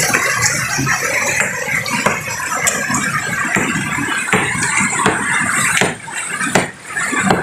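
Hammer striking a stone boulder, chipping at the rock: repeated sharp clinks of metal on stone, about one or two strikes a second at an uneven pace.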